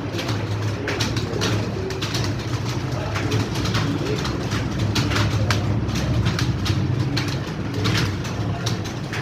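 Computer keyboard being typed on fast: a quick, irregular run of key clicks over a steady low hum.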